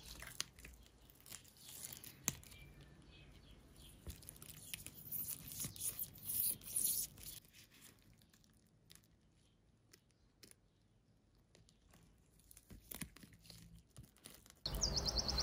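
Faint, scattered crinkling and crackling from a stiff sheet of asparagus-peel and starch bioplastic as gloved hands flex and press it, with a quiet stretch in the middle. A louder chirping sound cuts in right at the end.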